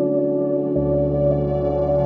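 Ambient background music of held, steady tones; a deeper bass note comes in just under a second in.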